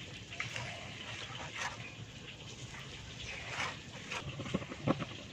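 Thick rice-flour batter being stirred constantly in a pot over heat to make it thicken: wet swishes, then a run of quick knocks against the pot near the end.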